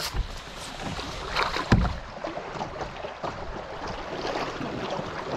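Fast spring-melt river current rushing and splashing, with irregular splashes and two dull thumps. The louder thump comes about a second and a half in.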